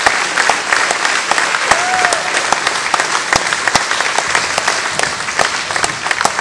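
Audience applauding in a hall, a dense clapping that slowly dies down.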